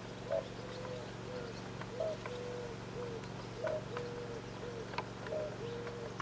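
A pigeon or dove cooing, repeating the same three-note phrase (a short higher note, a longer held note, a short note) about every second and a half, over a steady low hum.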